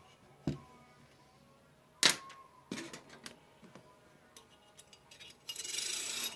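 A few sharp clicks and knocks of AR rifle parts being handled and fitted, the loudest about two seconds in, followed near the end by a brief scraping rustle.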